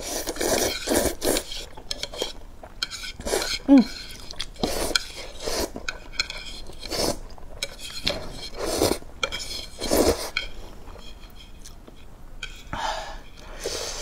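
A person slurping and chewing thick instant noodles in repeated short bursts, with chopsticks clicking and scraping against the bowl.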